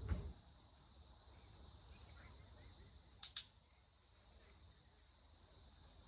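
A dog-training clicker gives one sharp double click, press and release, a little over three seconds in, marking the dog for looking up at the handler. A steady high buzz of insects runs underneath, with a low thump at the very start.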